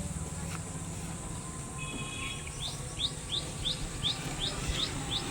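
Combine harvester's diesel engine running steadily at a low pitch. From about halfway in, a bird calls in a quick, even series of short rising chirps, about three a second.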